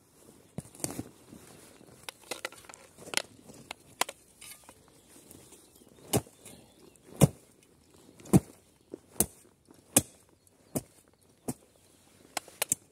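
Dutch army entrenching shovel chopping into forest soil and roots with sharp single blows. The blows are faint and scattered at first, then louder and about one a second from about six seconds in.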